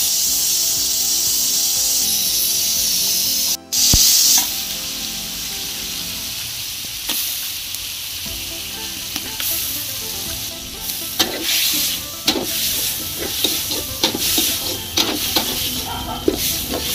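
Chicken fry sizzling in a steel kadai over a wood fire: a steady high hiss at first, louder for a moment just after four seconds in. From about seven seconds in, a metal spatula scrapes and knocks against the pan as the raw chicken and masala are stirred, the knocks coming thick and fast in the second half.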